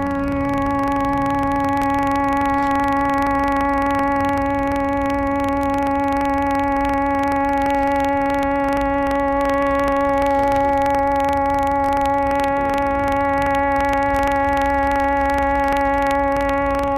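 A steady monotone drone: one held pitch with a row of overtones, unbroken and unchanging, over a low rumble. It is part of a tuning of several devices to the note A.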